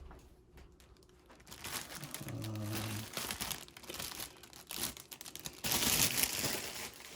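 Crinkling and rustling of the plastic bags around model-kit sprues as they are handled and lifted out of the box, loudest in the last second and a half.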